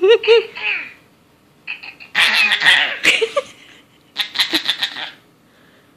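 High-pitched giggling in three short bursts, the last a quick run of ha-ha pulses.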